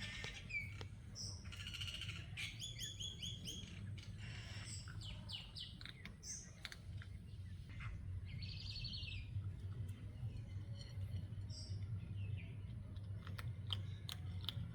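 Wild birds chirping and singing, with many short chirps and trills, over a steady low hum and a few sharp clicks.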